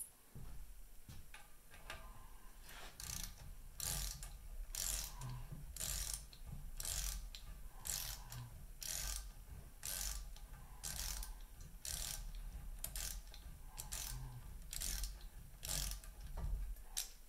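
Ratcheting torque wrench spinning down an outboard propeller nut in repeated short back-and-forth strokes, each stroke a quick burst of ratchet clicks, about one to two strokes a second.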